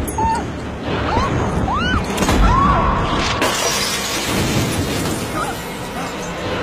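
Dramatic television soundtrack: tense music mixed with crashes and shattering effects, with several short rising-and-falling cries in the first half.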